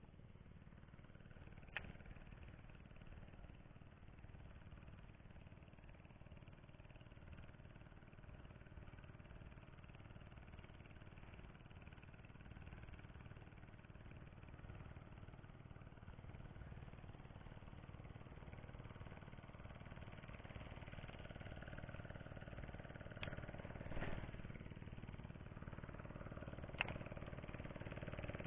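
Faint, steady hum of a distant engine that grows a little louder toward the end, with a few short sharp clicks, one about two seconds in and three more near the end.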